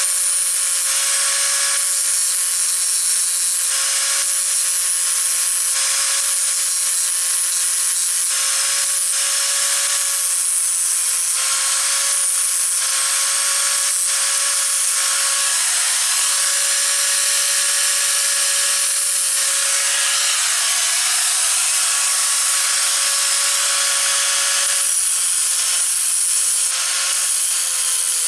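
Angle grinder running at a steady high whine, its disc grinding down weld built up on the broken teeth of a tractor gearbox gear. The grinding hiss swells and eases again and again as the disc bites the metal.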